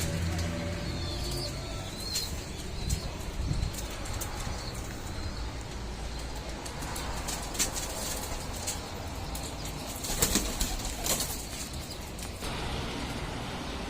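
Pigeons flapping their wings in short bursts, with the loudest cluster of wingbeats about ten seconds in, over a steady low wind rumble.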